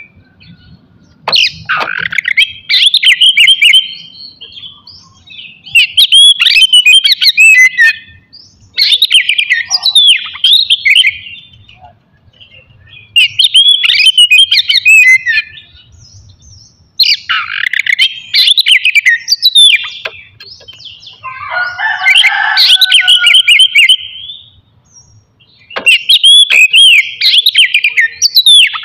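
Oriental magpie-robin (kacer) singing loud, varied whistled phrases of a second or two each, separated by short pauses. About two-thirds of the way through, one phrase drops into a lower, rougher note.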